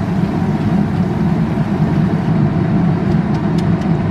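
A steady low rumble of kitchen background noise, with a few light clicks near the end from a wooden spoon working in a frying pan.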